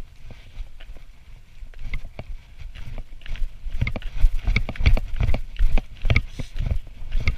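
Hiker's footsteps on snow, a steady train of short thumping steps that come about three a second and grow louder from about halfway through.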